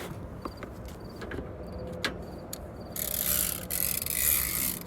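Retractable ratchet strap being worked: a few separate clicks from its ratchet mechanism, then about two seconds of steady hissing noise starting about three seconds in.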